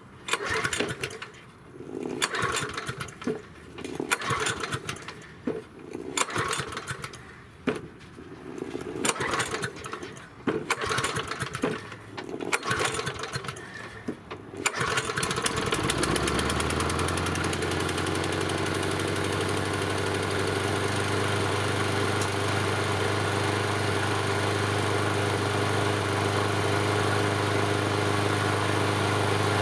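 A Yard Machine 6 HP walk-behind lawn mower engine is cranked in a string of uneven bursts. About halfway through it settles into running steadily at a constant speed, the mower now starting after sitting unused.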